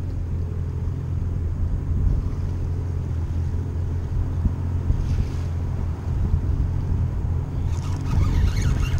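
Steady low hum of a Yamaha 190 FSH jet boat's engine idling, with a faint wash of water and wind. A few faint high chirps near the end.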